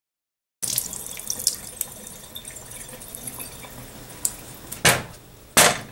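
Water splashing in a kitchen sink as a carnival squash is rinsed and handled, with small clicks and knocks. Two short, loud splashes come near the end.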